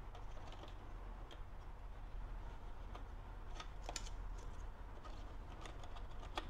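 Light plastic clicks and taps as hard plastic dash button-housing parts are handled and pressed into place, with a few sharper clicks about four seconds in and just before the end, over a faint steady low hum.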